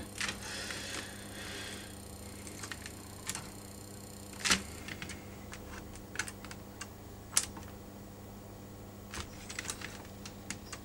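Electric wire embedder switching on and off as its electrodes touch the frame wire to melt it into the beeswax foundation: scattered light clicks over a faint steady hum.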